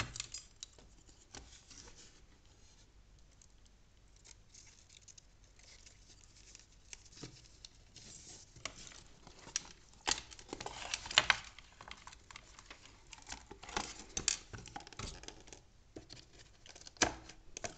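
Scattered clicks and scrapes of plastic parts and wires being handled against a plywood board. It is nearly quiet at first and busier in the second half, with a sharp click near the end.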